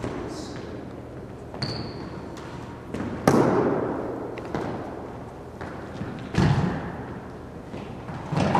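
Footwork on a racquetball court's hardwood floor: shoes squeaking and feet landing, with a few loud thuds about three, six and eight seconds in that echo around the enclosed court.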